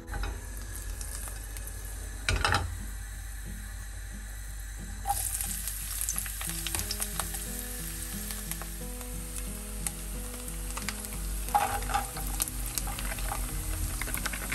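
Chopped onion frying in hot oil in a nonstick frying pan: a steady sizzle that starts about five seconds in, after a brief knock. A few seconds before the end the sizzling flares up as strips of ham go into the pan and are stirred with a wooden spatula.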